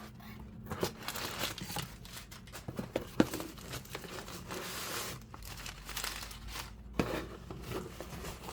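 Shipping box packaging being opened by hand: crinkling and rustling with some tearing, and a few sharp knocks, the loudest about three seconds in.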